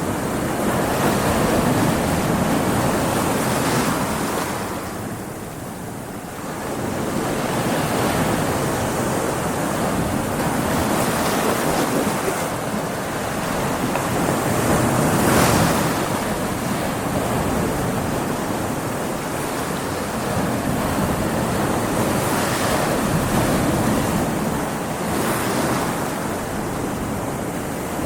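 Ocean waves breaking against rocks, a continuous wash of surf that eases off briefly about five seconds in and swells to its loudest crash about halfway through.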